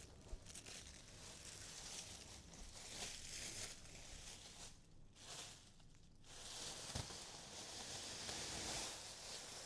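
Packaging being handled and unwrapped: paper or plastic wrap rustling and crumpling in uneven surges, with brief lulls about five and six seconds in.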